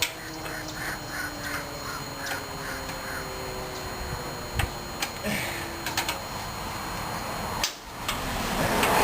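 Crow cawing, a quick run of about nine calls in the first three seconds, followed by scattered sharp clicks and knocks.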